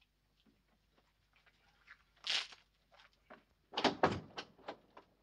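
Sharp knocks and rattles at a door, a quick run of about six about four seconds in, after a single short scraping noise about two seconds in.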